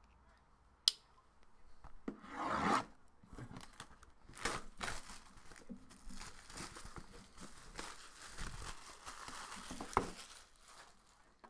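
Crinkling, rubbing and tearing of plastic shrink-wrap as a sealed trading-card box is handled and unwrapped. There is a sharp click about a second in and a knock of the box on the table near the end.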